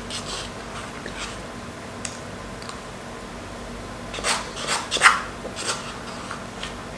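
Plastic spoon scraping around the inside of a small paper cup of rice: a few faint scrapes at first, then a quick run of louder scratchy scrapes from about four seconds in.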